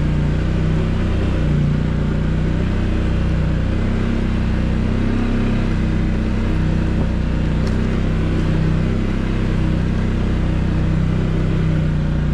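Can-Am Outlander 700 Pro XU ATV's single-cylinder engine running steadily at easy, light throttle while riding along a trail.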